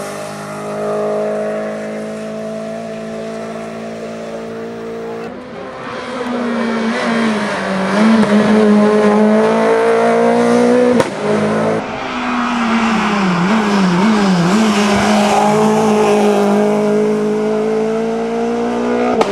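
Renault Clio Williams rally car's 2.0-litre four-cylinder engine running hard at high revs, its pitch dipping and rising a few times with lifts and gear changes. The sound jumps abruptly twice where the footage cuts between passes.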